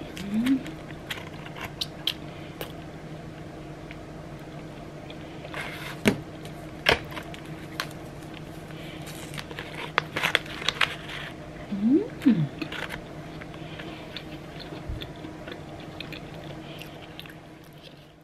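Someone eating: crunchy bites and chewing with scattered sharp clicks and knocks, over a steady low hum. Short squeaky sounds that glide in pitch come just after the start and, loudest, about twelve seconds in.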